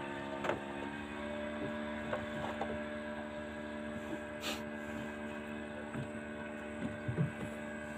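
Steady motor hum with a fixed pitch, with a few faint knocks and a short hiss about four and a half seconds in.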